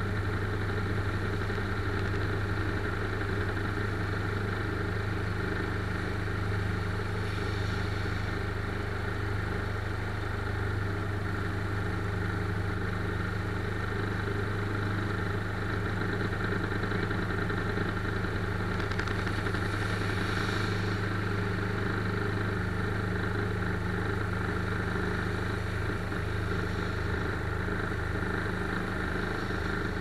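Steady low engine hum of a vehicle driving slowly, heard from inside its cab, with a brief hiss twice, about eight and twenty seconds in.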